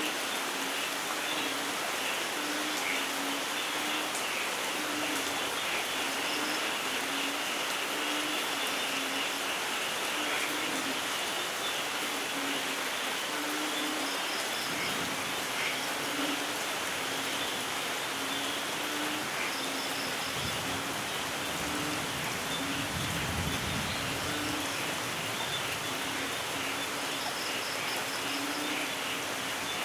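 Steady heavy rain, an even hiss of falling water, with a low rumble of distant thunder swelling and fading about two-thirds of the way through. Faint short calls repeat through the rain.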